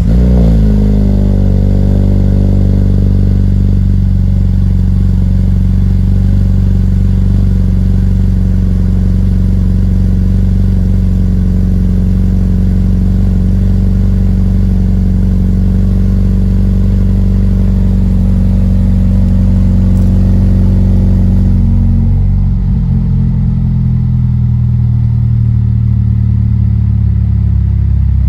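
Inline-four engine of a 2020 Mazda 3 hatchback with a Corksport axle-back exhaust idling steadily just after a cold start, its fast cold idle dropping to a lower idle about 22 seconds in.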